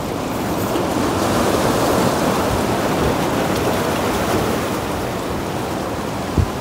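Sea surf washing steadily against shore rocks, with a brief thump near the end.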